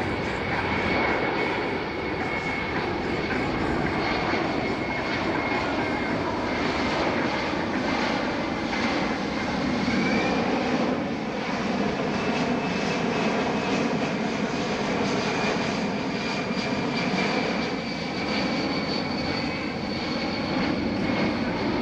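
Boeing C-17 Globemaster III's four turbofan engines running during a slow low pass: a steady rushing rumble with a high whine held throughout.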